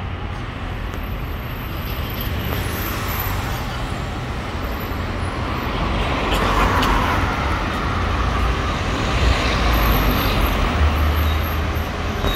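Road traffic: cars and engines passing on a busy street, growing louder about six seconds in.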